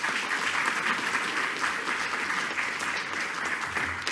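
Audience applauding, many hands clapping steadily at the end of a talk.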